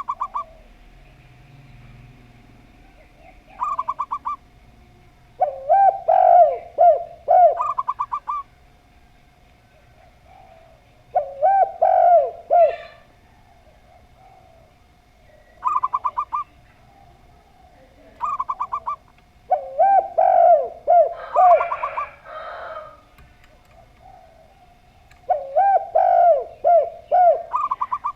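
Doves calling, a zebra dove (perkutut) and a spotted dove (tekukur): short, fast, higher trilled bursts alternate every few seconds with louder, lower cooing phrases of several notes. A faint steady hum tone runs underneath.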